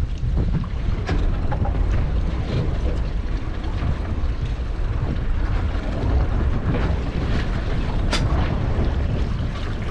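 Wind buffeting the microphone on an open boat at sea, a steady low rumble, with a sharp click about eight seconds in.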